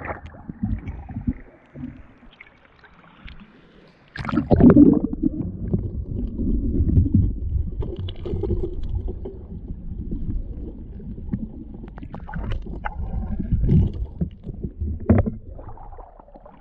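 Shallow river water splashing around a spear-gun-mounted GoPro at the surface, then, about four seconds in, a sudden loud, muffled low rumble of water as the camera goes underwater. Near the end it quietens as the camera comes back up.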